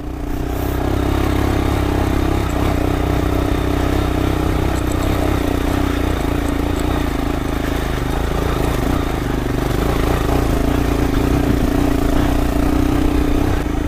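Royal Enfield Himalayan's single-cylinder engine running steadily as the bike is ridden along a rocky off-road trail, with an even engine note that swells slightly near the end.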